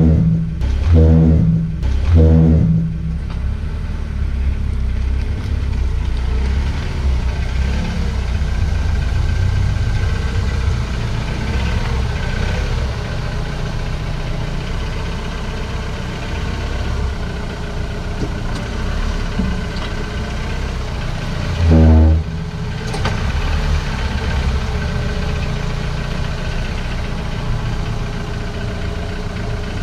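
Honda Step WGN Spada (RG series) minivan brakes making short low groaning noises, three close together at the start and one more about 22 seconds in, over the steady running noise of the van. This is the abnormal brake noise the owner finds unpleasant.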